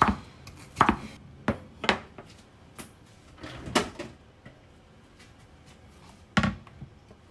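Kitchen knife chopping bitter gourd strips on a wooden cutting board: several sharp knocks in the first two seconds, then another knock near four seconds as the knife is laid on the board. After a quiet stretch comes one loud thump near the end.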